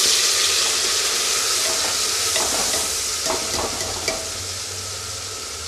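Wet onion-garlic-ginger paste frying in hot mustard oil in a pressure cooker: a loud sizzle that slowly dies down as the paste is stirred. A steel spoon clinks against the pot a few times in the middle.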